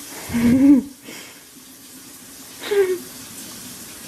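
Two short vocal sounds, one about half a second in that rises and falls in pitch and a shorter falling one near three seconds, over a steady low hiss.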